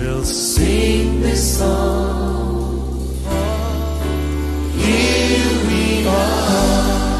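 A live worship song: a lead singer and choir sing over instrumental backing, with sustained bass notes that shift about every three seconds.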